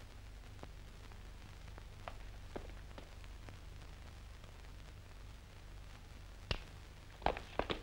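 A low, steady hum with a few faint taps, then near the end a run of sharp footsteps on a road begins.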